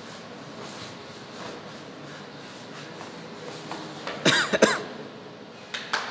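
A person coughing hard in a short cluster of harsh bursts about four seconds in, an acted cough in a play about air pollution; before it only a low room murmur.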